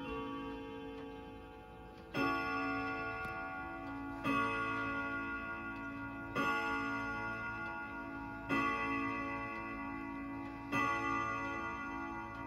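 Emperor grandfather clock striking the hour at midnight: five ringing strikes about two seconds apart, each fading before the next, with the clock ticking underneath.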